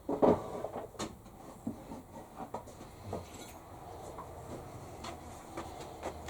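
Tool sets and their cases being handled: a string of light knocks and clicks, the loudest just after the start, then softer ones every second or so.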